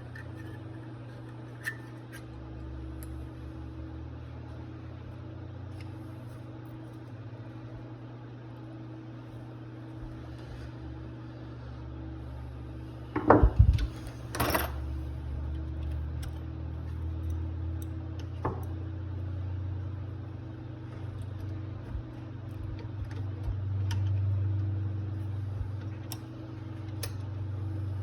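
Carburetor parts and hand tools handled on a workbench during a teardown: scattered light metallic clicks and knocks, with a louder clatter about thirteen seconds in, over a steady low hum.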